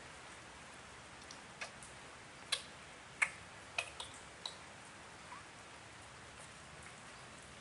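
About half a dozen light, sharp clicks and ticks, scattered through the middle seconds, over a steady faint hiss.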